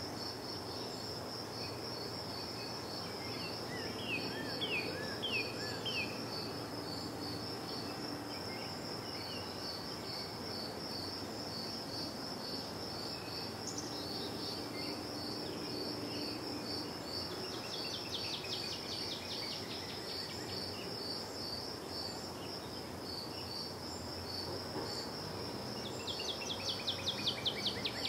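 Cricket chirping steadily in a high, even pulse of about three chirps a second. Songbirds call briefly about four seconds in, and a rapid bird trill comes twice, the louder one near the end, over a low background rumble.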